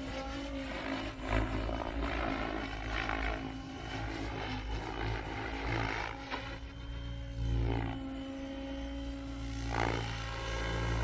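Goosky RS7 radio-controlled helicopter in flight: a steady rotor and motor whine that rises and falls in pitch a few times as it manoeuvres.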